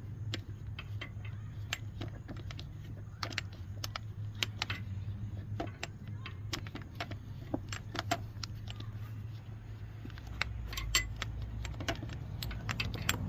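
Irregular small metallic clicks and taps of a 4 mm Allen wrench working a set screw out of a winch drum, over a steady low hum.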